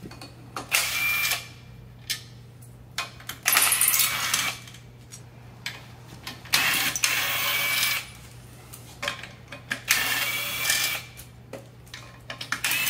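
Cordless power tool running in five short runs of about a second each, a few seconds apart, backing out the bolts of a Jaguar E-Type's clutch pressure plate. Light clicks come between the runs.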